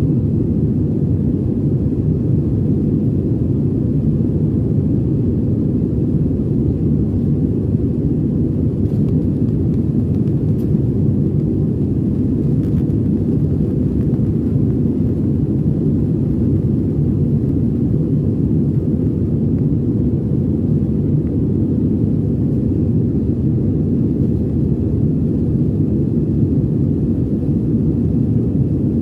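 Steady low drone of a passenger plane's engines and rushing air, heard inside the cabin in flight.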